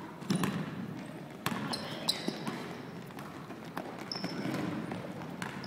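Basketball bouncing and players' sneakers squeaking and pounding on a hardwood gym floor: irregular sharp thuds and a few brief high squeaks, around two and four seconds in, in a large echoing gym.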